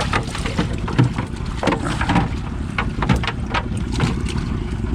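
Cast net full of baitfish being hauled aboard a boat, with a rapid run of short splashes and slaps from flopping fish and falling water. A steady low rumble runs underneath.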